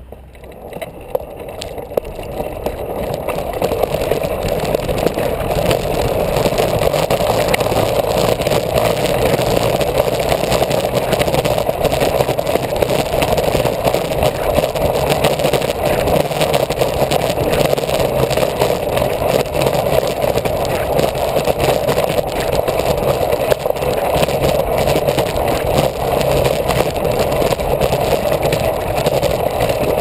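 Monowheel travelling at speed along a dirt road: a steady mechanical running noise that builds over the first few seconds, then holds even.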